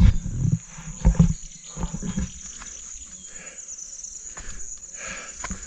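Steady high-pitched insect chirring, with a few loud low rumbles in the first two seconds.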